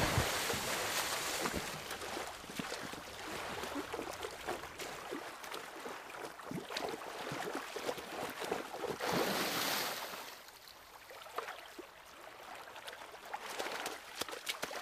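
Swimmers splashing in the sea, with surf washing against a beach and many small splashes; the splashing swells briefly about nine seconds in, then quiets.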